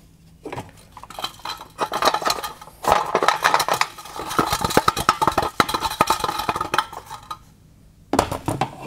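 Melted-down catalytic converter from a Ferrari 456 being shaken, its broken ceramic honeycomb catalyst rattling and clinking loose inside the metal shell, from about a second in until about seven seconds in. The loose rattle is the sign that the catalyst substrate has melted and broken apart.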